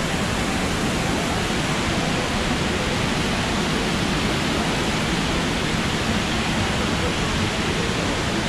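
Indoor fountain: a steady, even rush of water falling into a stone basin.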